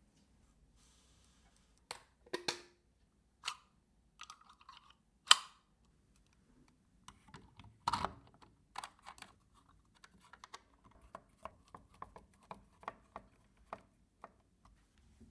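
Computer parts being handled and fitted during a PC build: a few sharp clicks and small knocks, the loudest about five seconds in, then a run of lighter, quick clicks.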